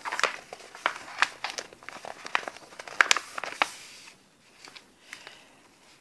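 Crinkling, crackling noise: a run of irregular sharp clicks and rustles for about four seconds, thinning out to a few faint ticks near the end.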